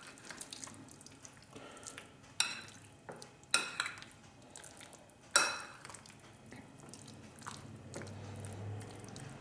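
Metal spoon stirring chunks of chicken in a thick creamy yogurt marinade in a glass bowl, with soft wet squelching and a few sharp ringing clinks of the spoon against the glass, the loudest about two and a half, three and a half and five and a half seconds in.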